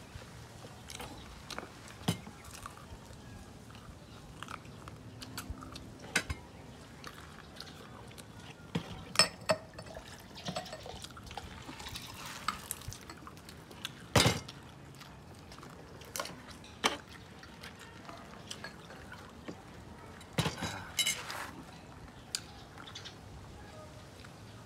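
Spoon and fork clicking and scraping against a plate during a meal, in scattered separate knocks, a few of them louder.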